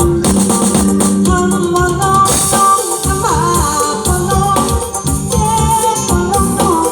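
Live Isan band music with a steady beat and a lead melody that slides between notes.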